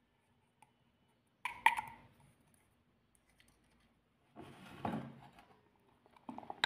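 Silicone spatula stirring a thick cream in a glass bowl: a sharp tap against the glass about a second and a half in, a short scraping stretch around five seconds, and a few small clicks near the end.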